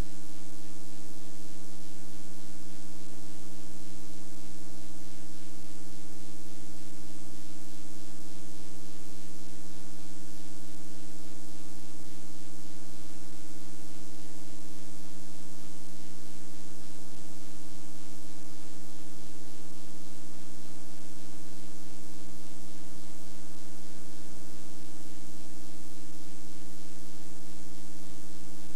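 Steady electrical hum with hiss, unchanging throughout, standing in for the lost soundtrack: an audio fault in the tape transfer.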